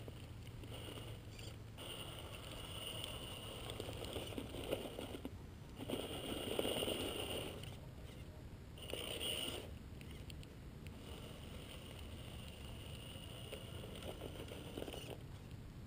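Electric RC rock crawler's brushed motor and geared drivetrain whining in spurts as the throttle is worked on a steep rock climb, with the tyres scraping and crackling over rock and dry leaves. The loudest push comes a little past the middle.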